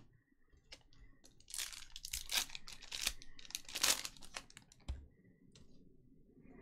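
A trading-card pack wrapper being torn open and crinkled: a string of rustling tears lasting a few seconds, loudest about four seconds in, followed by a brief low thump.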